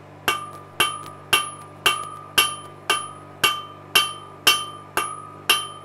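Hand hammer striking red-hot steel on an anvil in an even rhythm, about two blows a second, each blow ringing with a clear metallic tone. The blacksmith is drawing out the hot steel to widen it for a rivet hole.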